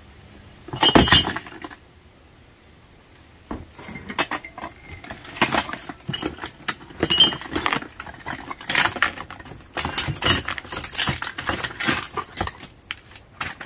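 Glassware and other objects clinking and rattling in a plastic storage tote as a gloved hand rummages through it, with a loud clatter about a second in and many small clinks after.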